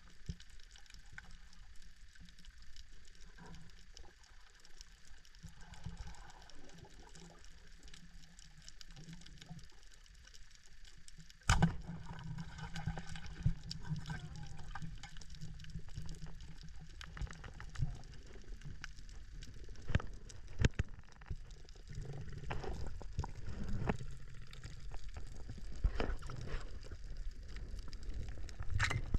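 Underwater reef ambience heard through a diving camera: a low rush of moving water with scattered clicks and crackle. About eleven seconds in there is a sharp knock, and the low water rush grows louder after it.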